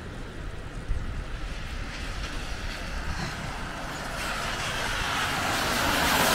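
A vehicle approaching on a wet, snowy street: its tyre hiss swells steadily over the last couple of seconds, over a low wind rumble on the microphone.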